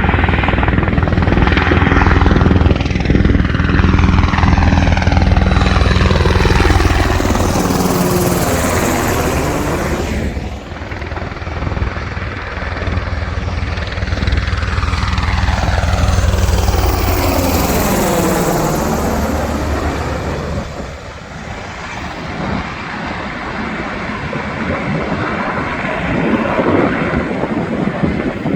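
UH-60 Black Hawk helicopters flying low past, with a heavy rotor beat; two loud passes about ten seconds apart, each swelling and then falling away, quieter near the end.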